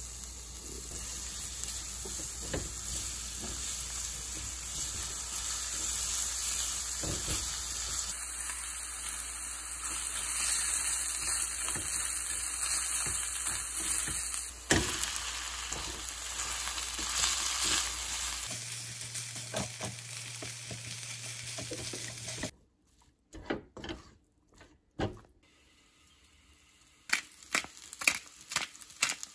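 Garlic, green onion and dried kimchi sizzling in oil in a stainless steel wok while a silicone spatula stirs them, a steady frying hiss with small crackles. Near the end the sizzle falls away, leaving scattered taps and scrapes of the spatula as fried rice is stirred in the pan.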